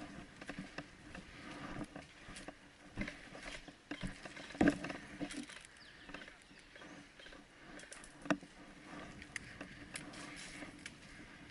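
Irregular crunching and rustling, with a few sharper snaps about four and a half and eight seconds in: footsteps and movement through dry brush.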